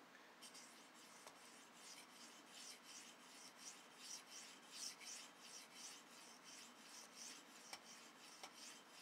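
Steel blade of a Leatherman E33L knife (154CM) stroked edge-first over an oiled sharpening stone, making a quick series of faint rasping strokes, about two or three a second, that stop near the end. These are the counted sharpening strokes on one side of the edge, done to work the burr.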